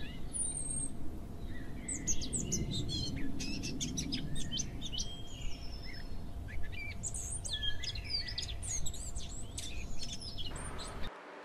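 Wild birds chirping and calling, many short high notes overlapping, over a low rumble of outdoor background noise; it all stops abruptly near the end.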